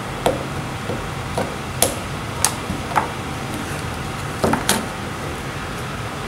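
Electric vacuum pump running steadily while it evacuates a glass jar, with several short sharp clicks over the steady noise.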